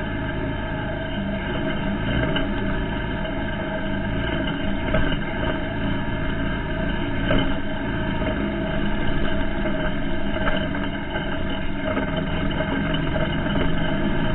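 ATV engine running steadily as the quad is driven along a muddy trail, with a few brief knocks from the ride.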